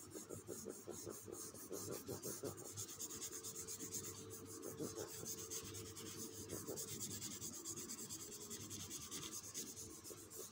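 Bare hand rubbing dry-erase marker lines off a whiteboard: faint, repeated rubbing strokes.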